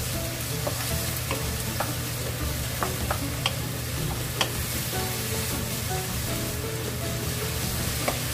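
Julienned bellflower root sizzling in a nonstick frying pan as it is stirred with a wooden spatula, with a few sharp clicks of the spatula against the pan.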